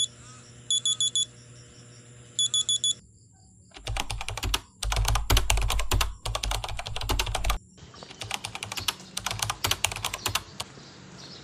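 Smartphone alarm beeping in quick groups of four high beeps, twice, then stopping about three seconds in. Then a keyboard-typing sound effect: rapid clicking keys, with two short breaks, as captions appear letter by letter.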